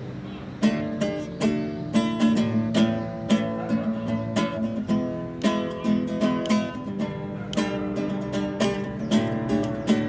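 Acoustic guitar playing: a chord rings out, then from about half a second in a steady run of strummed and picked chords.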